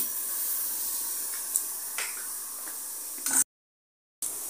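Steady hiss from a gas stove burner under a pressure cooker, with a few faint light clicks. The sound cuts out completely for under a second about three and a half seconds in.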